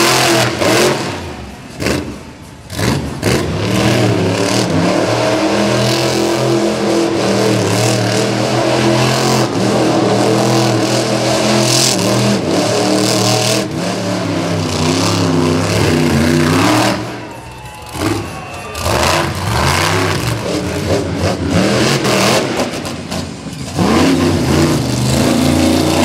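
Monster truck engines revving hard, with the pitch climbing and falling over and over as the throttle is worked. The sound drops briefly a couple of seconds in and again about two-thirds of the way through.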